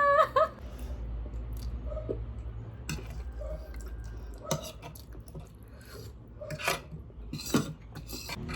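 Eating noises: cutlery clinking and scraping against a dish, a few short clicks and knocks spread through, over a low steady hum.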